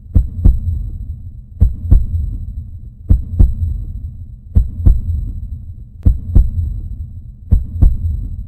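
Heartbeat sound effect: pairs of low thumps (lub-dub) repeating slowly, about every one and a half seconds, over a low hum.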